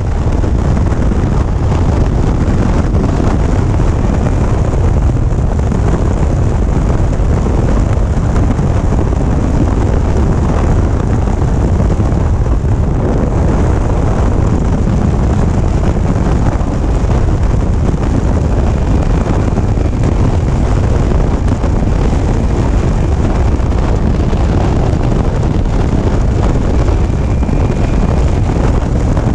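Steady, loud wind rushing over the microphone of a BMW C-Evolution electric scooter riding at about 85 km/h, with no engine note beneath it because the scooter is electric.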